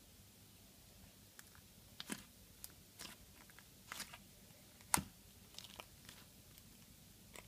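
Slime being squished and stretched by hand, giving irregular sharp clicks and pops, with the loudest pop about five seconds in.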